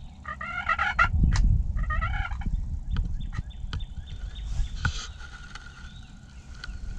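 Wild turkey tom gobbling twice in the first half, short rattling calls, over a low rumble of wind noise.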